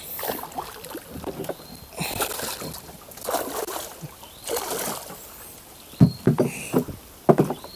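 A hooked grouper splashing and thrashing at the water's surface as it is fought to the boat, with water sloshing in several separate splashes. Near the end comes a run of sharp knocks and thuds as the fish is brought alongside the wooden boat.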